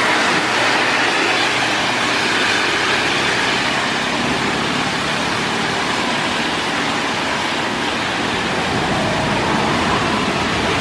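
Road traffic on a wet street: a city bus passes close at the start, then a steady hiss of tyres and engines from passing cars and buses.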